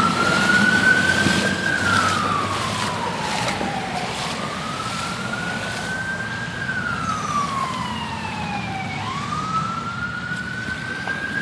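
Emergency vehicle siren in a slow wail, its pitch rising, holding and falling again in about two and a half long cycles.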